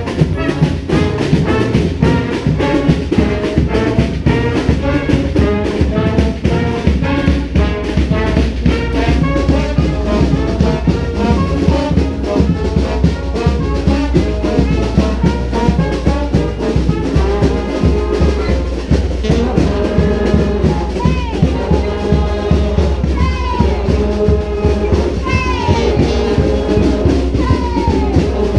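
Brass street band playing a New Orleans-style brass band tune: trumpets and trombones over a steady drum beat. In the second half the horns repeatedly bend and fall off their notes.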